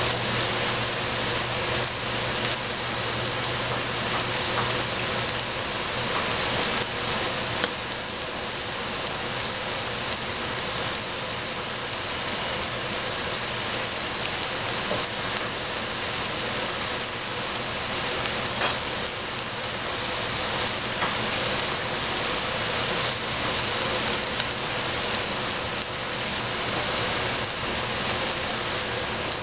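Food frying in a pan: a steady sizzle with fine crackles throughout.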